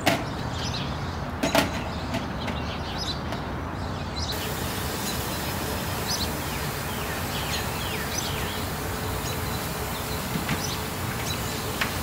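Kitchen tap running onto strawberries in a plastic colander, the water getting fuller and brighter about four seconds in. Two sharp knocks near the start as the strawberries are tipped from their plastic box into the colander.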